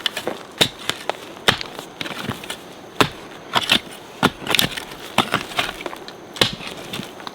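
Irregular sharp chopping strikes with crunching and splintering in between, like a blade or hoe cutting into wood or roots, about one or two hard strikes a second.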